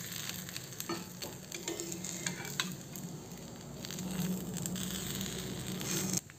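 A thin pitha sizzling faintly on a hot iron tawa, with a few light scrapes and taps of a metal spatula as it is folded over its coconut filling. The sound drops away just before the end.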